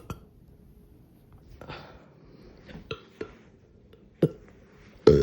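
A person's throat making several short, quiet clicks and small burps, then a loud deliberate burp starting near the end.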